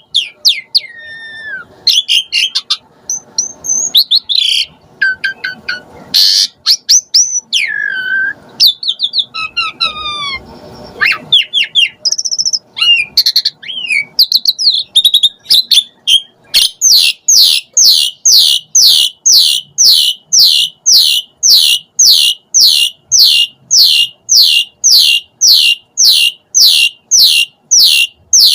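Pied starling (jalak suren) singing a varied song: whistled glides, falling notes and harsh chatter. From about halfway it shifts into a long, fast run of repeated downward-sweeping notes, about three a second.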